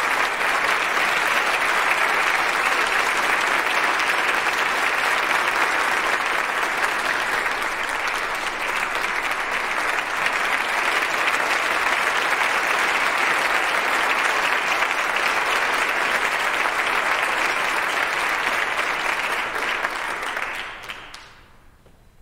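Audience applauding steadily, the clapping dying away quickly about a second before the end.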